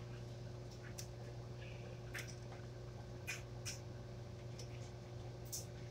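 Quiet kitchen room tone: a steady low hum with a handful of faint, scattered ticks.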